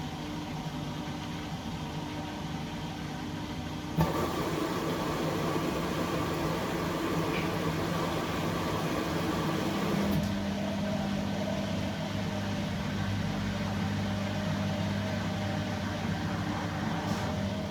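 Household washing appliance running a cycle, a steady mechanical hum. About four seconds in a click brings in a louder, busier running sound, and about ten seconds in the hum changes to a lower, steadier tone.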